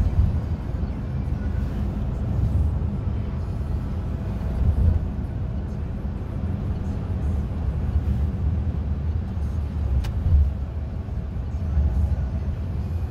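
Steady low rumble of a car heard from inside its cabin, with one short click about ten seconds in.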